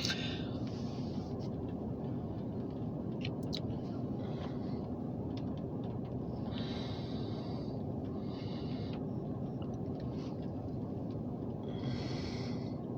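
Steady low background rumble, with a few brief faint hissing sounds over it.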